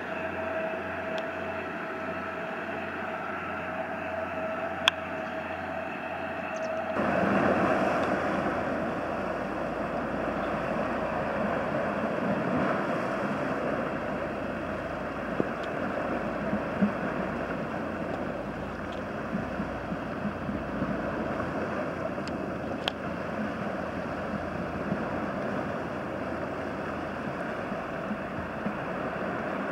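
A ship's engine hums steadily in the distance. About seven seconds in, it gives way to the splashing and washing of a ship's wake waves breaking against a stone-block dike revetment, loudest just after the change, with scattered small slaps.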